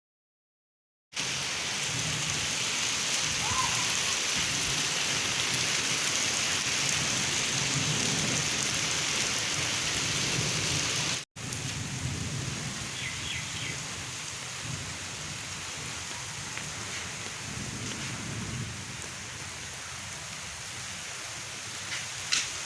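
Heavy rain falling, a steady hiss with low rumbles swelling underneath now and then. It starts about a second in, cuts out for an instant near the middle, then carries on a little quieter.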